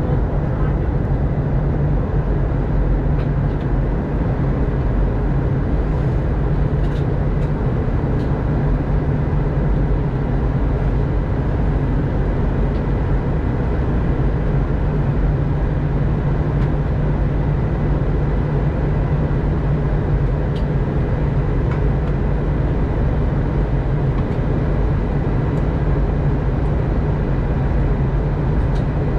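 Airbus A320 airliner in flight, heard inside the passenger cabin: a steady low rumble of jet engines and rushing air. It keeps an even level throughout.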